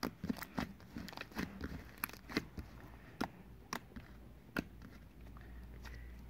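Slime being squeezed and worked by hand, giving irregular sharp clicks and pops that thin out after about four and a half seconds.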